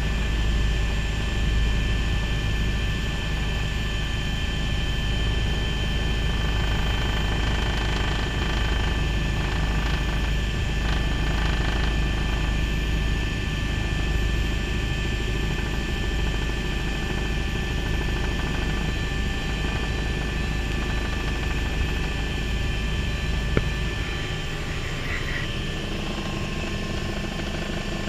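Bell 429 twin-turbine helicopter heard from inside its cockpit on approach: a steady deep rotor beat under a high turbine whine with steady tones. A single click comes a little before the low rumble drops away, about 24 seconds in.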